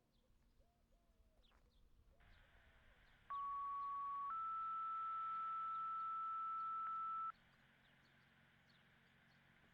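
Two-tone sequential paging tones through a handheld scanner radio's speaker. The channel opens with a hiss, then a steady tone sounds for about a second and a slightly higher steady tone for about three seconds: the activation tones that set off the outdoor warning siren. The open channel hisses on after the tones end.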